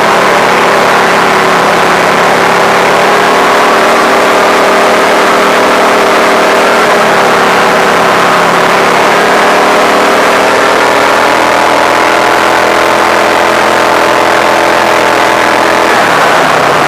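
Springer all-terrain vehicle's engine running at a steady cruising speed while driving, close and loud; the engine note dips a little near the end.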